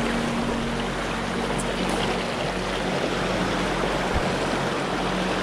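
Rushing river rapids: a steady, even rush of water over rocks.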